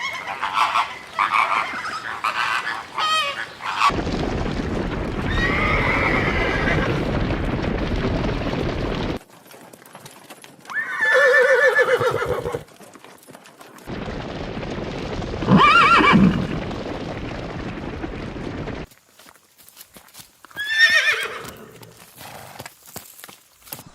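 Horses whinnying in a string of short separate clips, each call a shaky cry that rises and falls, with stretches of wind-like outdoor noise between them; the loudest whinny comes about two thirds of the way through.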